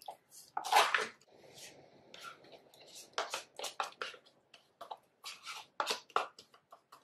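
The lid and seal of a plastic quark tub pulled off with a loud rustle about a second in. Then a spoon scrapes the soft quark out of the tub into a plastic mixing bowl in a run of short scrapes and knocks.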